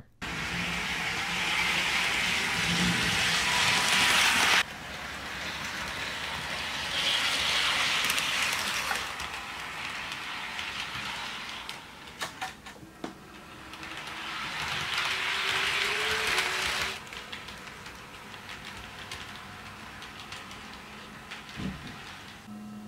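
HO scale model train running on Kato Unitrack, its wheels and motor making a steady rolling noise in three passes, the first cutting off suddenly about four and a half seconds in. A few light clicks sound in between.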